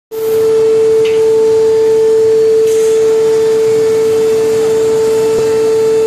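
Megatherm 30-ton, 15 MW induction melting furnace running under power: a loud steady hum on one high pitch with a fainter overtone, over a hiss.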